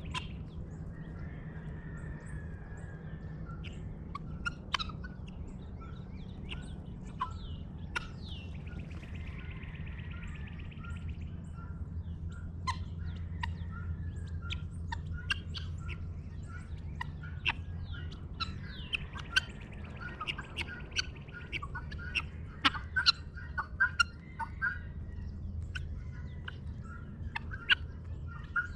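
Several birds calling at dawn: many short, sharp chirps and down-slurred whistled notes, getting busier after about twelve seconds, with a harsh rasping call about nine seconds in. A steady low rumble runs underneath.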